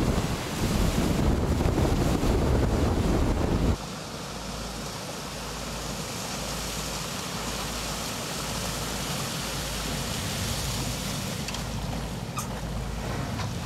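Loud wind buffeting the microphone and rushing spray as an IC 16 M aluminium patrol boat runs at high speed. This cuts off abruptly about four seconds in and gives way to a quieter, steady low engine rumble as the boat runs slowly toward the shore.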